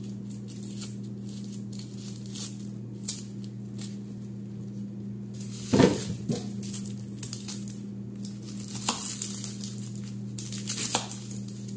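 Dry red-onion skin crackling and rustling as it is peeled off with a small knife, with small clicks of the blade. A louder knock about six seconds in, over a steady low hum.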